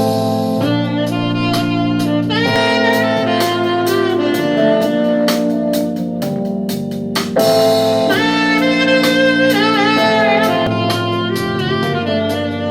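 Instrumental jazz-style music with a bending melodic lead over held bass notes and a regular drum beat, played loudly through a portable Bluetooth speaker.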